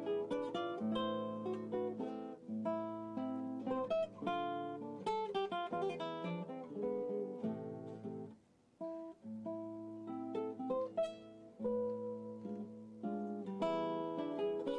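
Background instrumental music on acoustic guitar, plucked notes and strummed chords, with a short break a little past halfway.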